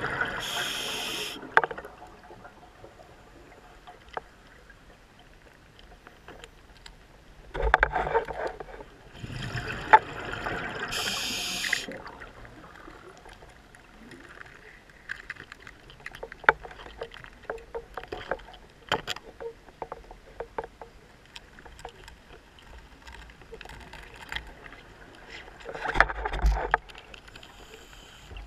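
Scuba diver breathing through a regulator underwater: exhaled bubbles rushing out in loud bursts several seconds apart, a hiss on some inhales, and scattered small clicks and taps between breaths.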